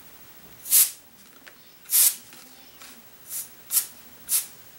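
Electric air duster giving five short puffs of air, each a brief hiss, blowing wet watercolor paint across the paper to push it into twiggy shapes.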